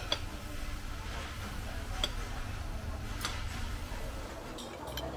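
Knives and forks clinking and tapping on ceramic plates: several separate light clicks over a steady low hum.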